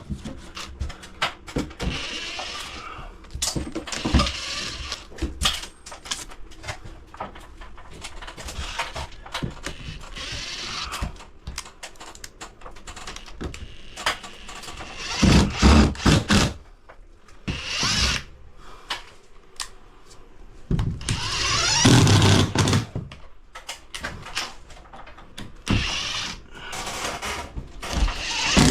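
A power drill runs in a few short bursts, amid scattered knocks and clatter of tools being handled.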